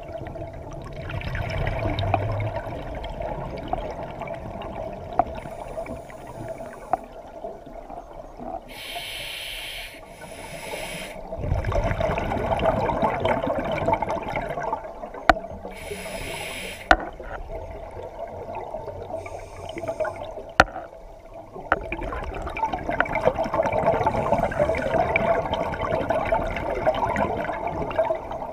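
Scuba breathing through a regulator, heard underwater: short hissing inhalations through the demand valve alternating with longer bubbling exhalations, over a steady hum, with a few sharp clicks.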